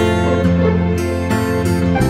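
Background instrumental music with plucked strings.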